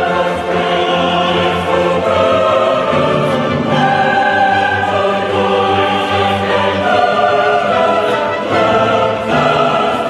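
Background music: a choir singing in an operatic, classical style over an orchestra, with long held notes that change pitch every second or two.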